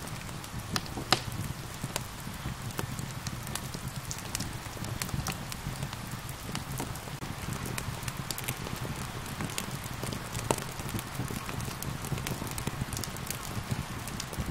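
Wood fire crackling, with frequent sharp pops and snaps, over a steady hiss of rain.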